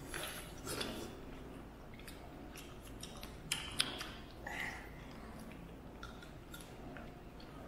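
Scattered small clicks, taps and rustles of food and tableware being handled during a meal, with two sharper clicks close together about three and a half seconds in.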